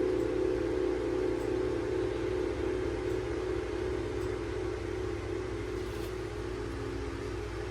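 Brass singing bowls ringing on after being struck or rimmed: several low sustained tones blended together, with a slow wavering beat, gradually fading.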